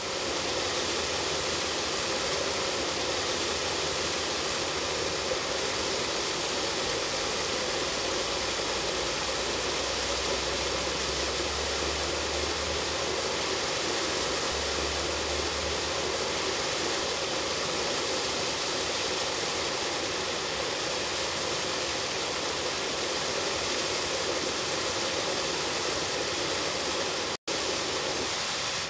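Aqua Pilz floating pond aerator with its submersible pump spraying a dome of water that splashes back onto the pond surface: a steady rush of splashing water, cutting out for an instant near the end.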